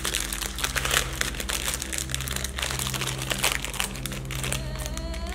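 Thin plastic snack-cake wrapper crinkling and crackling in the hands as it is torn open and the cake is pulled out, a dense run of small crackles.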